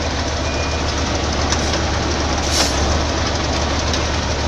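Heavy truck engine running steadily, a constant low drone under a broad noisy rush, with a faint brief rattle about two and a half seconds in.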